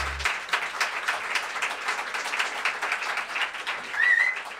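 Audience applauding, with dense, steady clapping and a short rising whistle about four seconds in.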